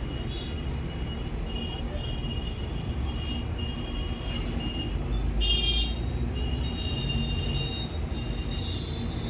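Steady low road-traffic rumble with short, high-pitched vehicle horn toots now and then, the loudest about five and a half seconds in.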